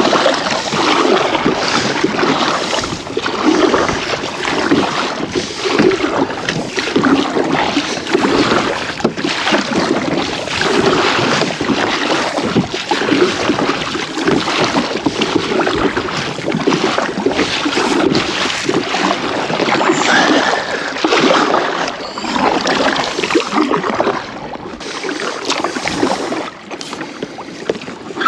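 Kayak paddling on open water: splashes that come back in a rough rhythm about every second and a half, with wind buffeting the microphone.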